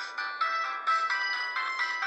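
A ZTE C332 MIDI ringtone plays on a Multilaser P9091 phone. It is a quick melody of short, bright synthesized notes in several voices, with no bass.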